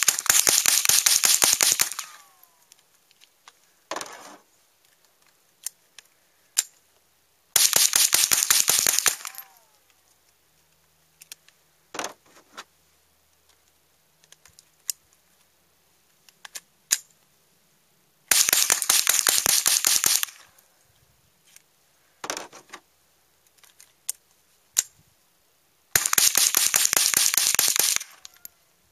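Marlin Papoose (70PSS) .22 LR semi-automatic rifle fired rapidly in four strings of quick shots, each lasting about two seconds, with scattered single clicks and knocks in the gaps between strings.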